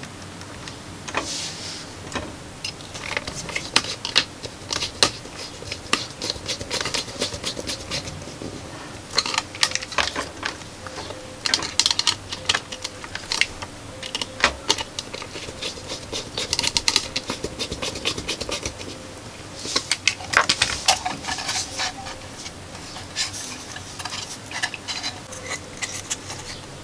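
Irregular small clicks, taps and scrapes of hand assembly: a screwdriver fastening screws through a metal speaker-terminal plate into a wooden speaker box, and a small subwoofer speaker on its mounting plate being handled.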